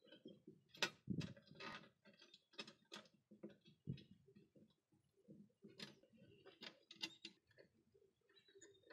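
Faint, irregular small clicks and taps of a push-type on/off switch, its screws and nuts being handled and fitted against a thin sheet-metal amplifier cabinet.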